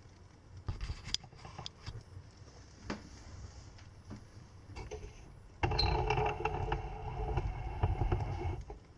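Wood fire in a fireplace crackling, with scattered sharp pops. About halfway through a louder, steady sound with a buzzy, held tone comes in over a low rumble, lasts about three seconds, then stops.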